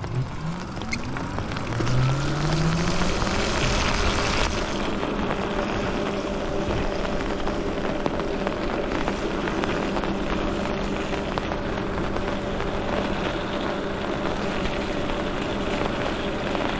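Lyric Graffiti e-bike's electric motor whining as it pulls away from a near stop. Its pitch rises over the first few seconds and then holds steady at cruising speed, over a steady hiss of tyres on wet pavement and wind.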